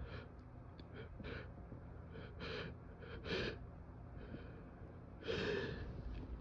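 A man's quick gasping in-breaths, hitching again and again as a hay-fever sneeze builds, with a short sharp burst about three seconds in and a longer, louder breathy burst near the end.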